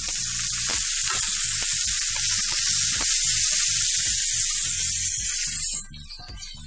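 Chopped tomatoes sizzling loudly in hot mustard oil in a frying pan, stirred with a spatula. The sizzle drops away sharply near the end.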